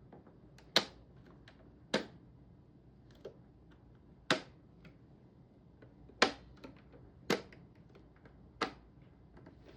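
Sharp clicks and knocks of parts being fitted into a rack server's chassis, six loud ones at uneven intervals of one to two seconds with fainter ticks between them.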